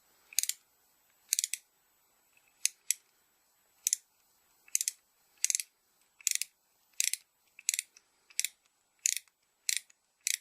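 T-handle ratchet tap wrench clicking in short ratchet bursts, over a dozen, roughly one every three quarters of a second, as it is worked back and forth to drive a 3 mm tap through a hole.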